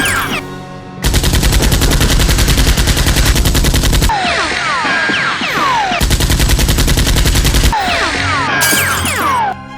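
Machine-gun sound effect in two long rapid-fire bursts, with falling whistle-like sweeps between them, over background music.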